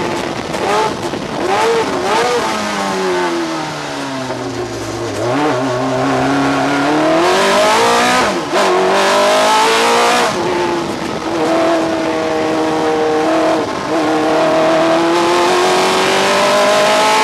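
Onboard sound of an Osella PA9/90's BMW S14 2.5-litre four-cylinder engine at racing speed. Early on there are quick ups and downs in the revs, then the revs drop low about four to five seconds in and climb again, break off briefly twice around eight and ten seconds in at gear changes, and pull up steadily toward the end.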